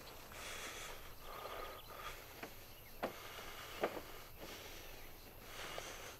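Faint outdoor ambience over open farmland, with a few soft, sharp taps in the middle.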